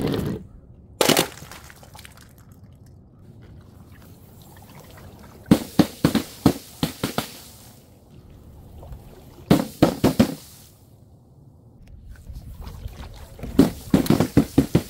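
Dropped containers bursting and splashing liquid: four clusters of sharp, quick impacts, the second and longest a rattle of many hits in fast succession, with a quiet wash of liquid between them.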